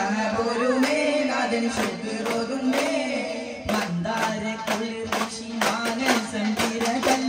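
Duff muttu: a sung melody over sharp strokes on duff frame drums. The strokes come quicker and closer together over the last couple of seconds.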